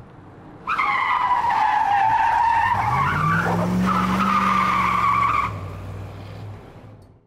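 Car tyres screeching: a loud, high squeal starts suddenly about a second in, breaks briefly midway and picks up again. A lower engine note rises beneath it and fades out near the end.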